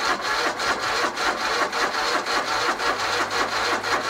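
Gravely 260 riding mower's engine being turned over by its starter, cranking in a quick, even rhythm without catching. It doesn't sound like it wants to start, which the owner takes for the engine not getting fuel.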